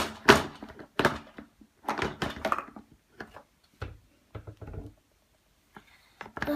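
Irregular knocks and thumps of plastic Play-Doh tools and cups being handled and pressed on a table. The loudest come right at the start, with smaller clatters scattered through the rest.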